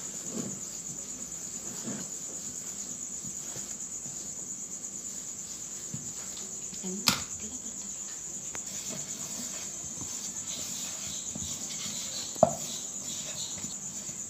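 Crickets chirping in a steady, high, continuous trill, with two sharp clicks, one about halfway through and one near the end, over faint handling of food in a bowl.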